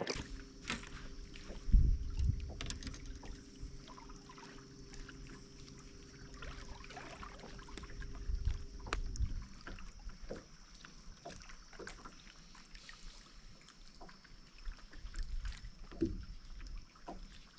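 Handling noise on a small fishing boat during casting and retrieving: low thumps and knocks on the hull, the loudest about two seconds in and another near the middle, with scattered light clicks. A steady low hum runs under it and stops about halfway through.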